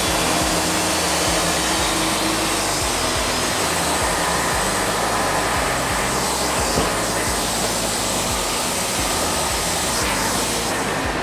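Wood-Mizer LT40 Wide portable bandsaw mill running steadily.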